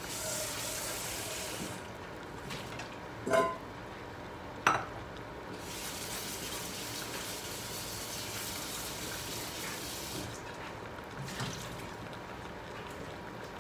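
Saucepan of vegetable broth simmering on an electric stove, a steady hiss of boiling liquid that swells twice, with two short ringing clinks a few seconds in.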